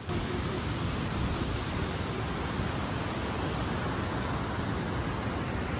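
Ocean surf washing steadily onto a sandy beach, an even, unbroken rush of waves.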